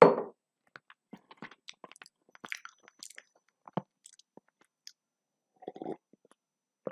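Close-miked mouth sounds of eating: a loud swallow right at the start, then sparse small chewing clicks and smacks. Near the end come a few gulps of water from a steel tumbler.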